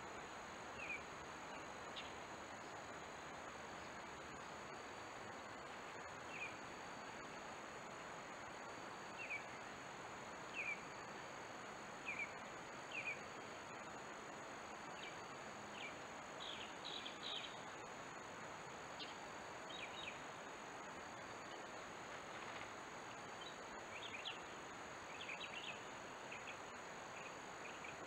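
Steady insect hum with scattered short, high bird chirps, some coming in quick little clusters.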